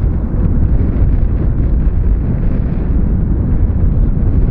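Boeing 757's twin turbofan engines at climb power as the airliner climbs away after takeoff: a steady, loud, deep rumble.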